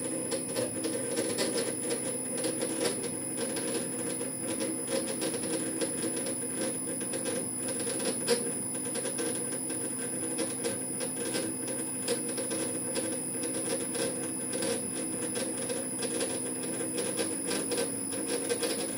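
Metal lathe running slowly under a VFD during a threading pass, cutting a 5 TPI Acme thread in a bronze nut. Its drive and gearbox give a steady hum and whine, with rapid irregular ticking and clicking throughout.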